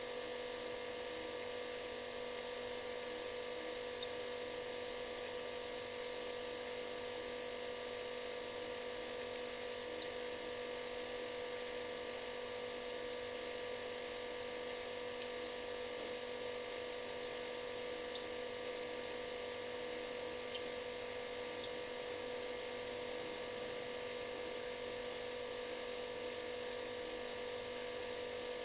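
Refrigerator running with a steady buzzing hum: one strong, unchanging tone with several fainter tones above and below it, over a soft hiss, and a few faint ticks.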